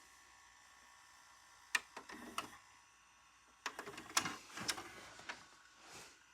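Quiet hiss broken by sharp mechanical clicks and clunks: a few about two seconds in, then a denser cluster about four to five seconds in.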